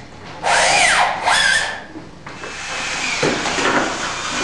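Two short, harsh scraping strokes, each with a squeal that rises and falls in pitch, followed by a steady hiss from about two seconds in: tool work on material.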